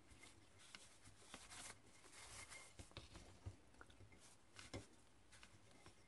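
Near silence with faint rustles and a scattering of small clicks, the sound of hands quietly handling craft materials.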